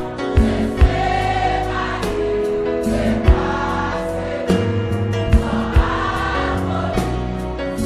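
Haitian Creole gospel song: a choir singing held notes over a backing band with bass and a few sharp drum hits.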